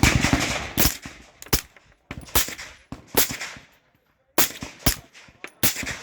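Gunfire: about eight shots at uneven intervals, some sharp and close, others followed by a short echoing tail.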